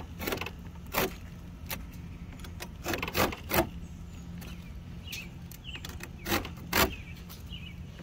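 Fin straightening comb scraping and clicking through the bent aluminum fins of a heat pump condenser coil in short strokes, over a steady low hum.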